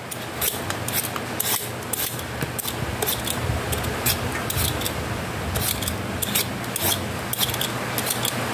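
Vegetable peeler scraping strips of skin off a green papaya: short rasping strokes, irregular, roughly two a second.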